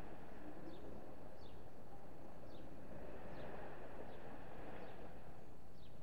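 A small bird chirping repeatedly, short high chirps falling in pitch about once a second, over a steady low background rumble.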